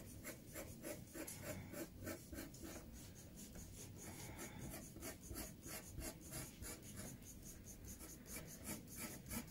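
Graphite pencil drawing on paper: a faint run of short, scratchy strokes, several a second, as the pencil goes over the lines of an outline.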